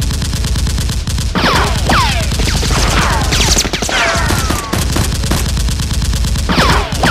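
Automatic gunfire sound effect dubbed over the Nerf blasters: a rapid machine-gun burst of shots, with falling ringing tones about once a second.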